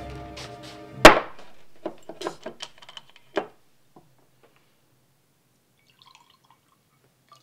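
A glass whisky bottle is knocked down hard on a wooden table about a second in, followed by several lighter knocks and clinks of glass on wood as it is handled.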